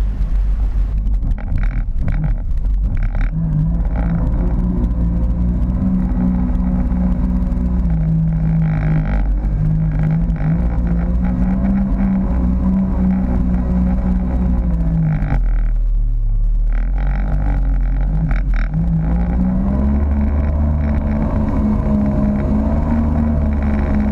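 Personal watercraft (jet ski) engine running under way at steady speed. About two thirds of the way through, its pitch drops as the throttle eases, then climbs back up.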